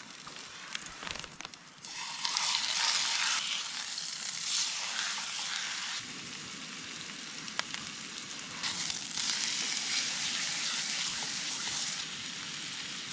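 Steak sizzling in a hot frying pan, the sizzle growing loud about two seconds in and swelling and easing after that, with a few light clicks.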